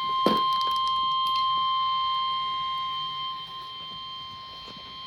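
NOAA Weather Radio warning alarm tone: one steady, continuous tone near 1050 Hz, heard through a radio receiver. It eases slightly in level about three seconds in and stops near the end, as the lead-in to a severe thunderstorm warning broadcast.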